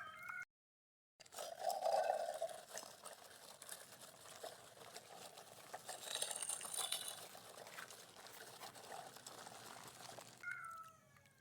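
Faint trickling and splashing of water as a muddy toy truck is washed. The sound drops out entirely for under a second near the start.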